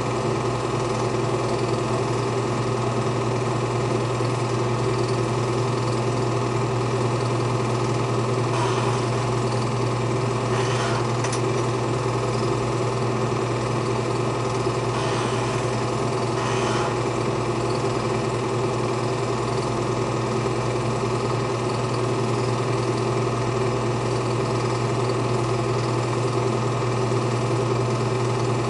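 Film projector running steadily, its motor hum and rapid shutter clatter unchanging throughout.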